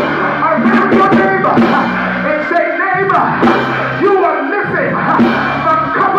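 Live band music with held bass notes and drum or cymbal hits, and a voice singing or calling over it.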